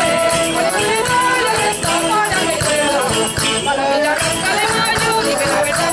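Spanish folk group performing: women singing a folk song together, accompanied by a small woodwind, a plucked string instrument and a jingling, rattling percussion keeping a steady beat.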